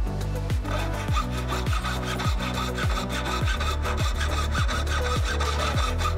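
Jeweller's piercing saw cutting through a white gold plate on a wooden bench peg: quick, fine rasping strokes. Background music with a steady kick-drum beat, a little under two beats a second, and a held bass line runs underneath.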